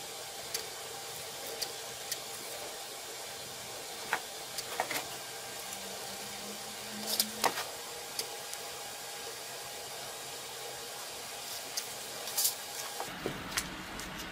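Close-up handling sounds: scattered soft clicks and taps of a gloved hand working metal tubes of adhesive paste against cardboard, the loudest a pair of clicks about halfway through, over a steady faint hum.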